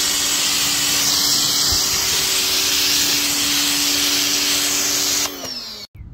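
A pressure washer with a foam cannon sprays soap foam in a steady, loud hiss over a steady motor and pump hum. About five seconds in, the spray stops and the motor winds down, falling in pitch.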